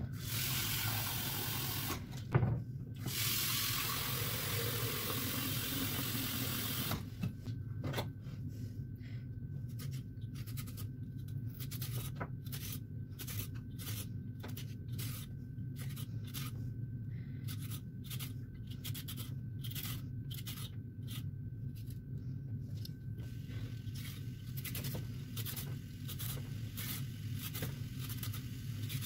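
Tap water running into a steel saucepan for about seven seconds, broken by one sharp knock about two seconds in. Then a vegetable peeler scrapes down a raw carrot in quick repeated strokes, a few each second.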